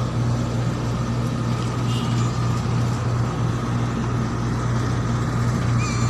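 Steady low mechanical hum, like a nearby engine running, throughout. Just before the end a cat gives a short, high meow.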